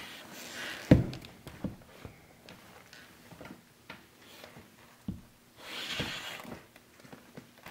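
Heavy lug-soled leather boots (Steel Ranger 20-hole) shifting and knocking on a wooden floor: a few dull thuds, the loudest about a second in, with rustling from the leather as the feet turn, about a second in and again near six seconds.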